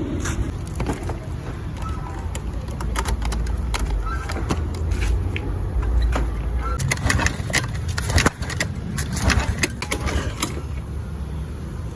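A steady low rumble with many scattered clicks and knocks, and faint voices now and then.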